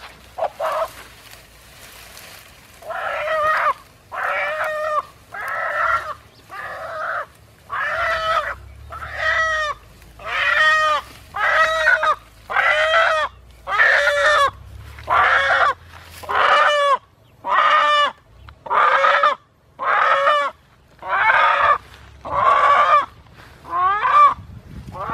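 A captured wild chicken held in the hands squawking, one harsh call about every second, starting about three seconds in.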